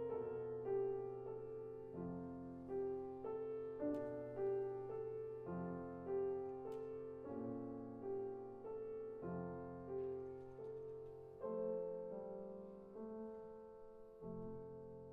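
Steinway grand piano playing a slow, soft passage of repeated chords, a new chord roughly every second, fading gradually toward the end.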